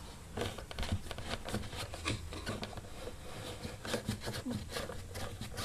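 Screwdriver turning a screw into a chair's metal bracket: a string of small, irregular clicks and scrapes of the tool on the screw and metal.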